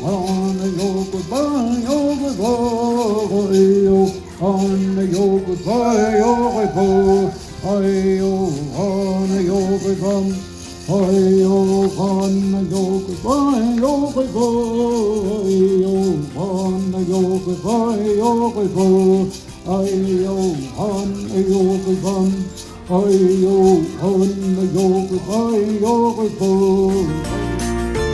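Music: a song with a sung melody over a steady beat.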